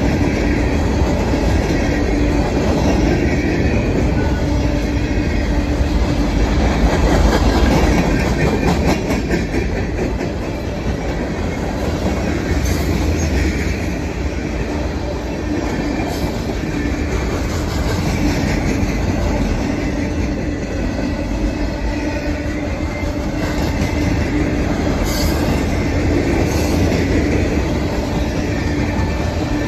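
Loaded freight cars (hoppers and tank cars) rolling past close by: a steady rumble of steel wheels on the rails with clickety-clack over the rail joints and a steady whine from the wheels.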